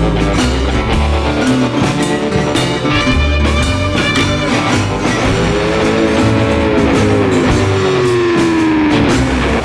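Background rock music with guitar over a bass and drum beat, the guitar sliding in pitch in the second half.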